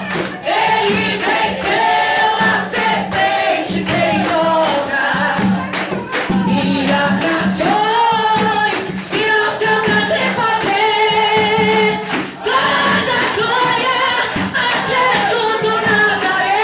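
Live gospel worship: a woman singing lead into a microphone, held notes with vibrato, with the congregation singing along over hand percussion.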